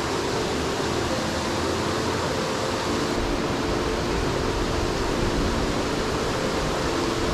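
Steady rushing of a small stream riffle as water spills over rocks, an even unbroken wash of sound.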